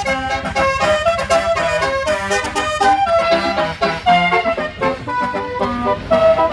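Bus telolet musical air horn playing a fast tune of many short, reedy notes in quick succession over a low rumble.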